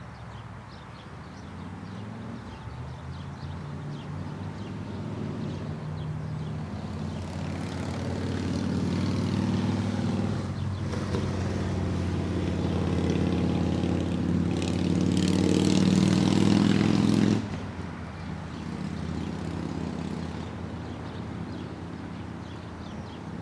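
An engine running steadily, growing louder for about fifteen seconds and then dropping away suddenly about seventeen seconds in.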